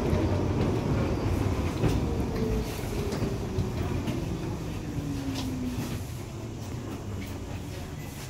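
New York City Subway R62A car braking into a station: the rumble of wheels on rail with scattered clicks, and a whine that falls steadily in pitch as the train slows. The noise eases off toward the end as the train nears a stop.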